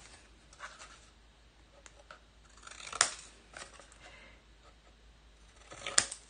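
Scissors snipping through paper box tabs: a few faint cuts, then two sharper snips about three seconds apart.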